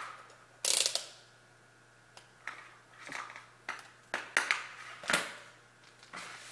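Irregular sharp clicks and taps of multimeter probes and handling against the terminals of an electrical control panel, with a brief scraping rustle about a second in, over a steady low electrical hum.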